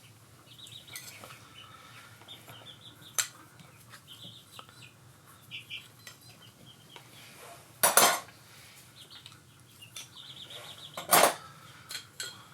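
Metal clutch plates and friction discs from a Honda VT700C's wet multi-plate clutch clinking as they are handled, with two loud metallic clanks about eight and eleven seconds in.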